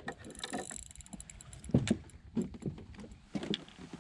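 Irregular knocks, taps and clicks of handling in a small jon boat as a hooked crappie is brought in, the loudest a thump a little under two seconds in.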